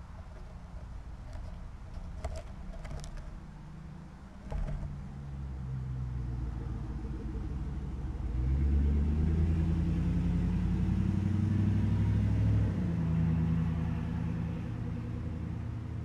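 A motor vehicle's engine running close by. It grows louder about five seconds in, is loudest for several seconds midway with its pitch shifting, then eases off near the end.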